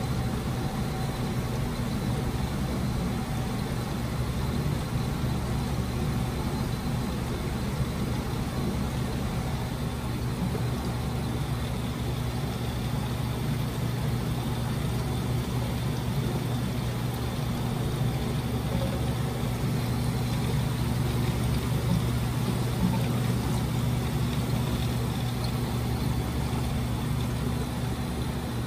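Bashsea aquarium sump running: a steady low hum from its pumps, with water and air churning in the foaming protein skimmer.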